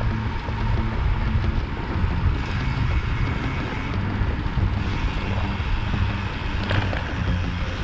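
Wind buffeting the microphone while riding a road bicycle at speed: a steady low rumble with rushing noise, and a brief click near the end.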